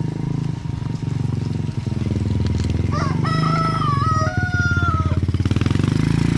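Small underbone motorcycle engine running at low speed, getting louder as it approaches and passes close by. A rooster crows once, starting about three seconds in and lasting about two seconds.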